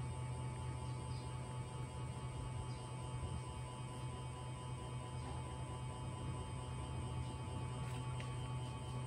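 Steady low electrical hum at an even level, with a faint steady higher tone above it.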